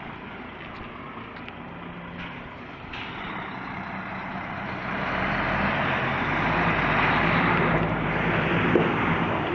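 DAF XF 530 truck's diesel engine running, growing louder from about halfway through as its deep engine note strengthens.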